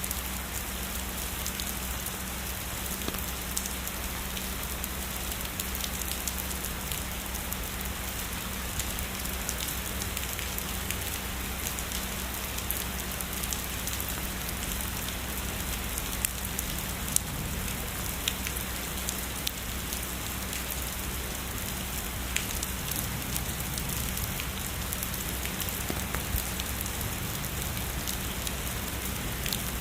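Steady heavy rainfall, a constant wash of rain with many sharp individual drop hits scattered through it.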